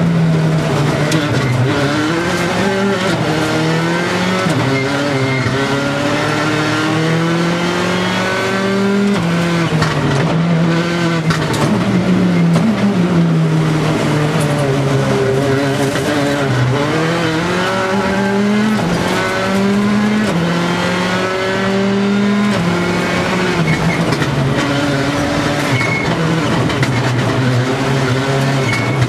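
Škoda Fabia rally car's engine heard from inside the cabin at full stage pace, its pitch repeatedly climbing and then dropping away as it runs up through the revs and comes off for corners.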